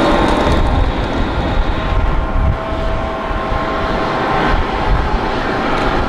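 Boeing 777-300ER's twin GE90-115B turbofan engines running as the airliner rolls out on the runway after landing: a steady, loud jet engine noise with a faint whine in the middle.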